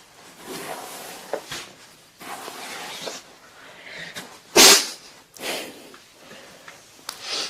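A person sneezing once, sharp and loud, a little past the middle, after a couple of noisy breaths.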